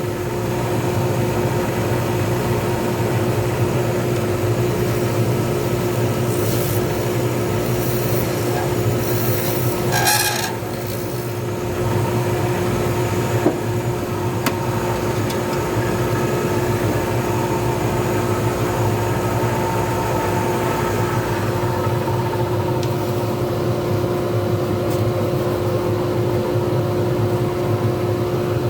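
A lathe running steadily with a constant hum while a resin pen blank spins on it, with several short scraping bursts as the blank is worked, between about six and ten seconds in.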